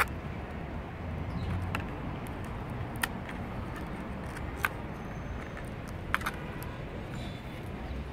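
Die-cut cardboard of a Google Cardboard viewer being handled and small tabs popped out of the sheet, giving a few separate sharp clicks, two of them close together about six seconds in, over a steady low background noise.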